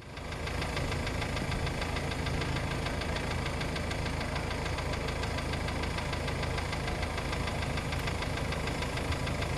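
Outboard motor of a rigid inflatable boat running steadily at low speed, with a fast, even pulsing. The sound fades in at the start.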